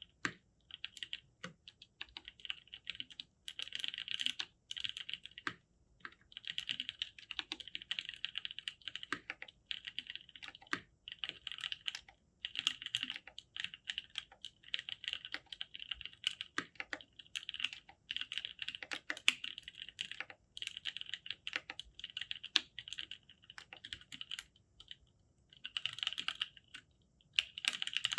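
Continuous fast typing on a custom mechanical keyboard with lubed NovelKeys Cream linear switches and GMK Signal keycaps: dense runs of keystroke clacks with short pauses between bursts, one longer pause near the end.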